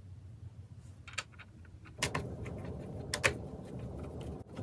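Light clicks and small metallic taps of computer hardware being handled, with sharp clicks about one, two and three seconds in over a faint hum.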